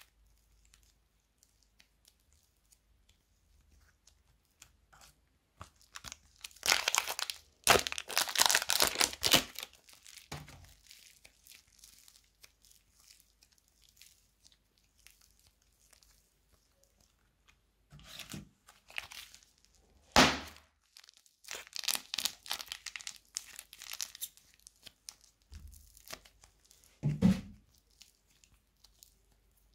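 Thick pink slime being stretched, folded and pulled apart by hand, making sticky crackling and tearing sounds in two long stretches with quiet between, and a soft low thud near the end.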